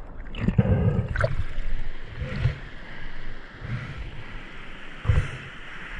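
River water sloshing and gurgling around a camera half-submerged in fast water, with several low thumps. From about two seconds in, the steady rush of shallow river rapids.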